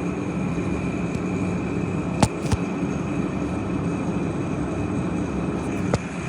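2013 Jaguar XF engine idling steadily, with a thin steady high whine over it and a few short sharp clicks about two seconds in and again near the end.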